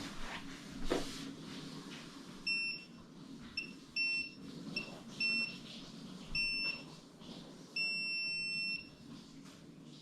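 IRONZON fingerprint door lock beeping during fingerprint enrolment: about six short high beeps at uneven intervals as the finger is pressed and lifted, then one longer beep of about a second near the end as the fingerprint is registered.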